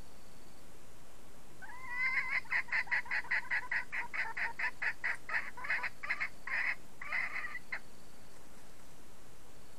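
Red junglefowl hen cackling: a rapid run of about twenty clucking notes, some three a second. It starts about two seconds in and stops about two seconds before the end.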